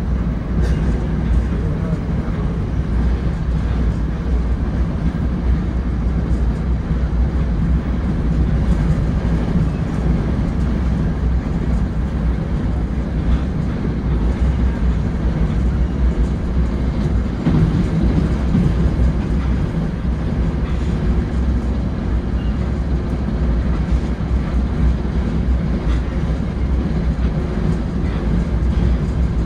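Steady low rumble and hum inside a Bombardier Comet IIM commuter rail coach.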